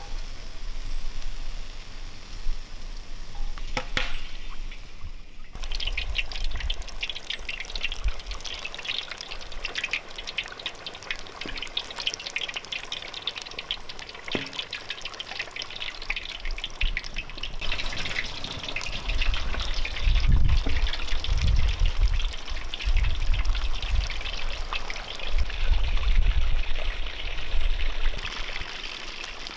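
Chicken drumsticks frying in hot oil in a cauldron: a dense sizzle and crackle that starts up abruptly about five seconds in as a drumstick goes into the oil. A low rumble comes in bursts in the second half.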